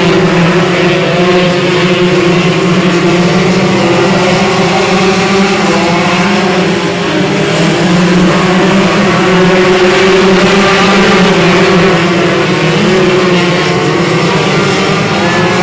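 Engines of a pack of 125cc micro sprint race cars running together on track, a steady, loud blend of many engines.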